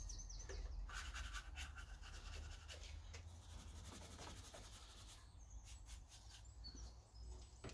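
Faint scratchy scrubbing of a bristle detailing brush, with a small bird chirping in the background from about halfway through.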